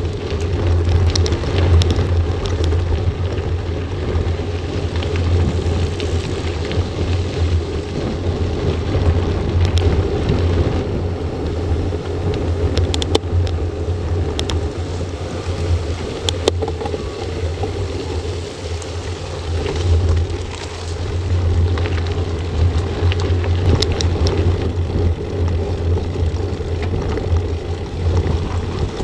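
Wind rumbling steadily on a bike-mounted action camera's microphone while riding a mountain bike on gravel, with the hiss of tyres on the road and scattered sharp clicks from gravel and the rattling bike.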